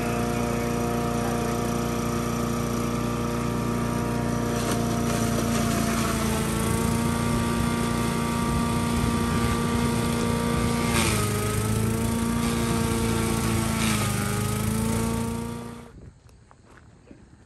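Small gas-engine chipper-shredder running steadily while corn stalks are fed in and chopped. Its pitch dips briefly a few times as the stalks load it, then the sound cuts off near the end.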